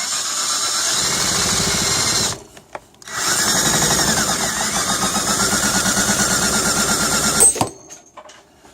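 Power drill spinning a hole saw against an aluminum pipe in two runs: about two seconds, a brief pause, then about four seconds more with an even fast chatter, ending in a sharp clack as it stops.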